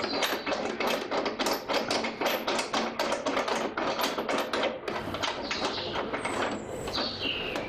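A fast, even run of sharp clicks, about five a second, that dies down after about five seconds, with a brief high squeak near the end.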